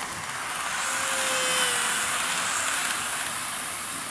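N-gauge model train, an E233 series set, running on the layout's track: a hissing rattle of wheels on rail with a faint motor whine, swelling to a peak about a second and a half in and then slowly fading.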